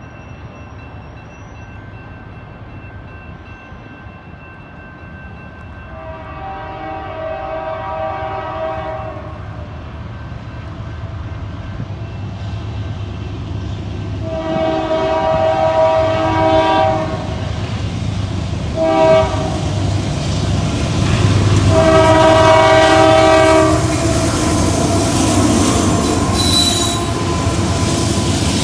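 Approaching train sounding its horn in the grade-crossing pattern of two long blasts, a short one and a long one, each louder as it nears. It then passes close by with loud rumbling and rattling wheels on the rails.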